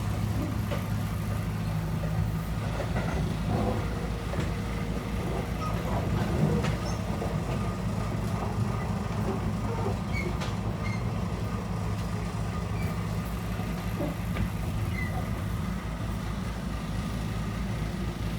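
Blower-type cooler's fan running with a steady, loud low hum and fast pulsing: an abnormal noise that the owner puts down to the fan spinning off-centre or to resonance.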